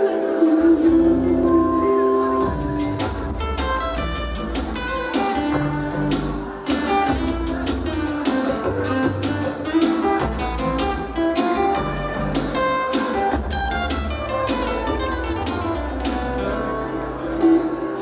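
Music for a stage dance: a song with a steady beat, a bass line and percussion throughout.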